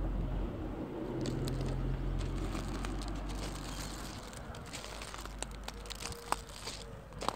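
Outdoor rumble on the microphone at first, fading after a few seconds, then scattered crackling clicks and rustles.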